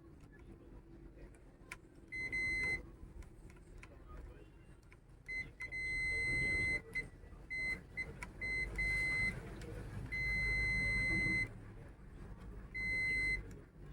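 Multimeter continuity buzzer beeping on and off at irregular lengths, from brief chirps to beeps over a second long, as the test probes make and break contact on the circuit board.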